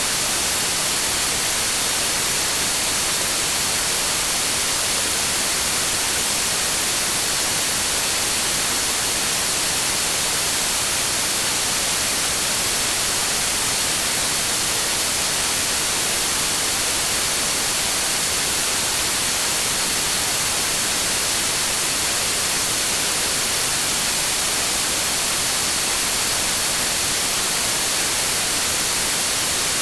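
Continuous synthetic green noise: an even, unchanging hiss, strongest in the treble, with a faint steady high tone running through it.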